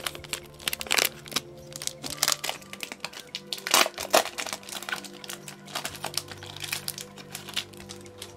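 Foil booster pack wrapper crinkling as it is handled and torn open: a run of sharp, irregular crackles, loudest about a second in and again around four seconds in, over quiet background music.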